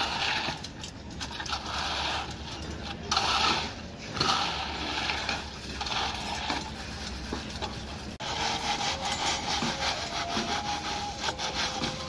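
Straightedge screed scraping back and forth across freshly poured wet concrete, in repeated rasping strokes about one a second, levelling the slab.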